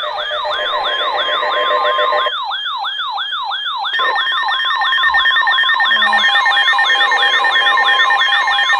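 Electronic siren tones, several layered at once: fast repeating falling sweeps, about four a second, with steady alarm tones sounding beneath them for most of the time.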